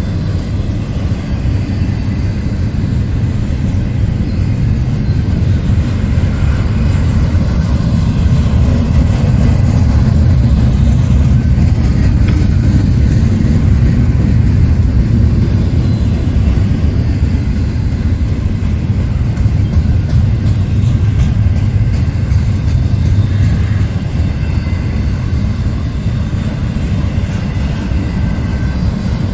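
Double-stack intermodal container train rolling past, a steady low rumble of its well cars on the rails that swells a little in the middle.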